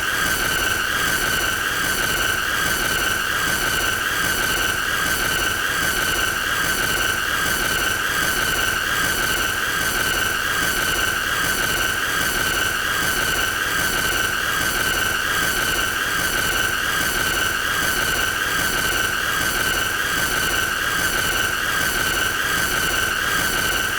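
A continuous high-pitched squealing tone with overtones, steady in pitch and loudness, with a slight regular pulsing over a noisy hiss.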